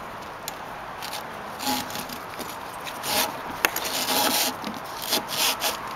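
Nylon strap webbing being threaded and pulled through the hole in an aluminium bowsprit tube: scattered rustles and scrapes, with one sharp click a little past halfway.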